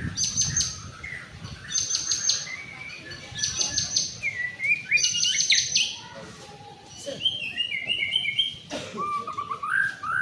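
White-rumped shama (murai batu) singing. It gives four quick bursts of rapid, sharp high notes a second or so apart, then lower whistled, warbling phrases near the end.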